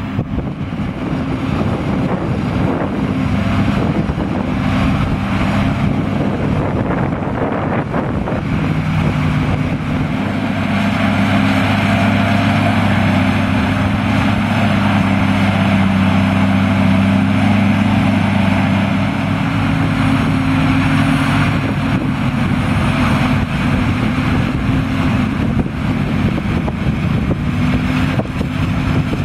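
Forage harvester chopping maize and a John Deere tractor pulling a silage wagon alongside it, their diesel engines running steadily. The engine drone grows louder through the middle as the machines pass close, and then eases off. Wind buffets the microphone.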